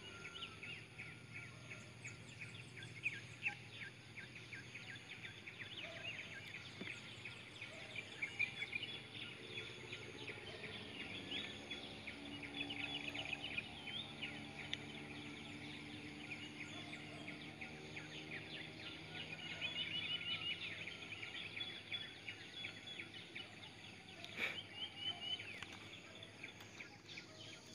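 Birds chirping: many short, quick calls over a faint, low, steady hum.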